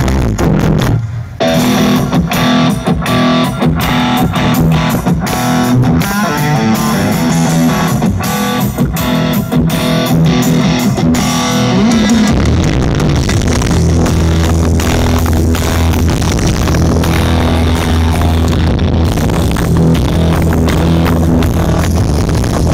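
Music with guitar and a heavy bass played very loud through a large parade sound system stacked with subwoofers. Sharp beats fill the first half, and about halfway through a steady deep bass takes over.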